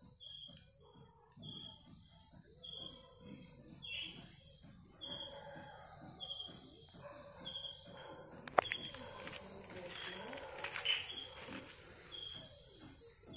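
Night insects calling: a steady high-pitched drone with a chirp repeating about every two-thirds of a second. A single sharp click comes about eight and a half seconds in, with a few faint scratchy clicks after it.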